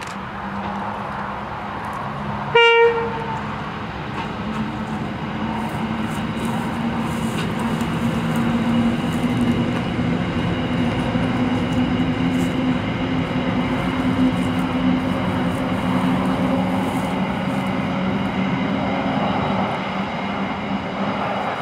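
One short horn toot from a Qube QL class diesel locomotive about two and a half seconds in, then the steady drone of its diesel engines as a long train of empty steel wagons rolls past.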